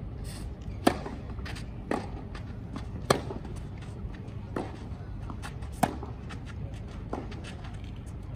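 Tennis rally on a clay court: a tennis ball struck back and forth by rackets, six sharp hits roughly every 1.2 seconds, alternating louder and fainter, with a few softer ticks between them.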